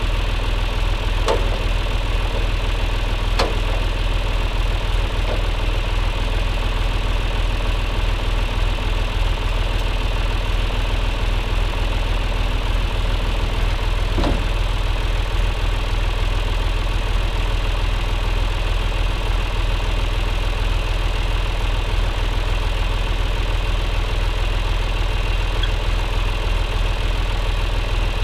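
John Deere tractor's diesel engine idling steadily, with a few sharp clicks on top: twice in the first few seconds and once about halfway through.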